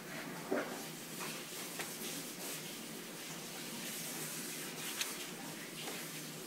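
A child's paintbrush and paint-covered hands tapping and dabbing on paper and a plastic high-chair tray: a few soft taps, the sharpest about half a second in, over a steady hiss.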